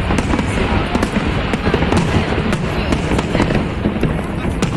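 Many fireworks going off at once: a dense, continuous crackle with frequent sharp bangs.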